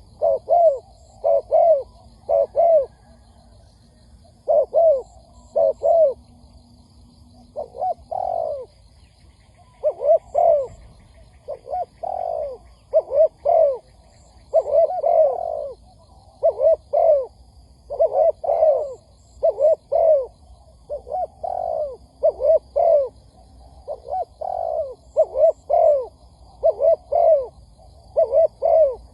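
Spotted dove cooing over and over: short falling coo notes in clusters of two or three, a new phrase every second or two. The bird is a decoy calling to draw in wild doves.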